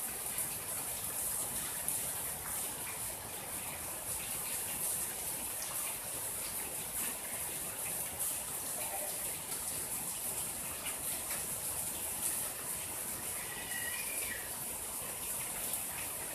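Steady rain falling: an even hiss with scattered faint drop taps.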